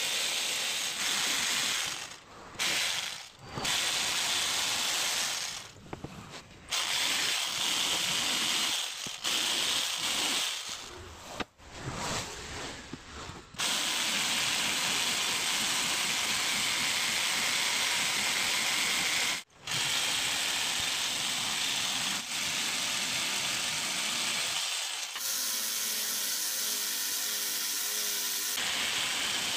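Dongcheng electric jigsaw cutting through a wooden board, its blade chattering steadily in long runs with several short breaks. Near the end the sound changes for a few seconds to a quieter, more even tone.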